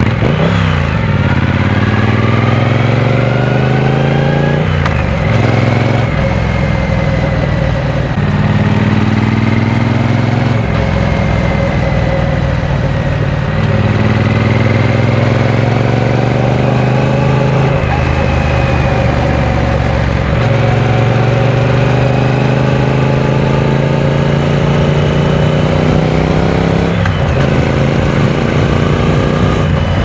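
Triumph Speed Twin 900's 900 cc parallel-twin engine under way, its note climbing under throttle and dropping back several times.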